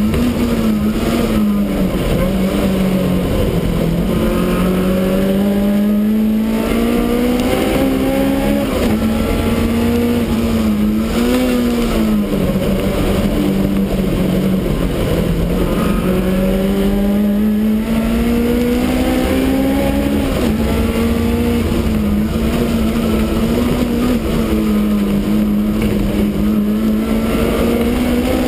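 Supercharged BMW E30 race car engine under hard driving, heard from inside the stripped-out cabin: its pitch climbs repeatedly under acceleration and falls back as it shifts and slows for corners, over steady road and wind noise.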